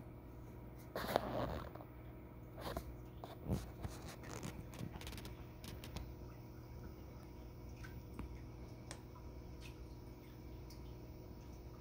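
Aquarium equipment humming steadily and low, with a few scattered clicks and knocks, the loudest about a second in and again after three seconds, thinning out after about five seconds.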